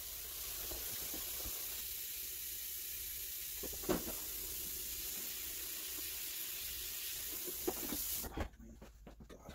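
Kitchen faucet running into a stainless steel sink, with a few knocks of things being handled in the sink. The water is turned off about eight seconds in.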